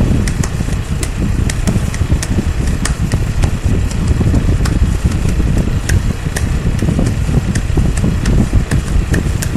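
A loud, steady low rumble like an engine drone, with many scattered sharp crackles over it.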